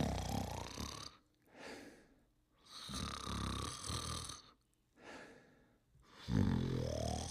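Animated character snoring: loud rasping snores alternating with softer, hissing breaths between them, three snores in all, the last one rising in pitch.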